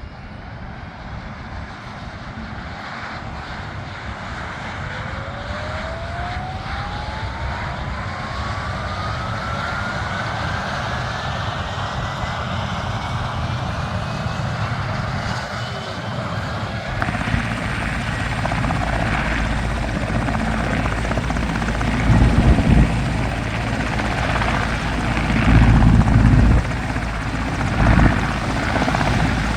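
Helicopter engine and rotor noise growing steadily louder, with a whine rising smoothly in pitch over about twelve seconds. From about halfway, heavy low rumbling gusts come in and are the loudest part.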